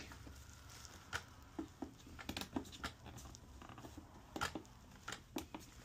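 Faint, irregular small clicks as the push buttons of a bench curve tracer are pressed, over a low steady hum.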